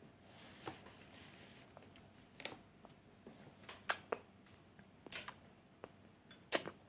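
Faint, scattered wet clicks and smacks from a baby's lips and mouth, about six of them, the loudest two thirds of the way in.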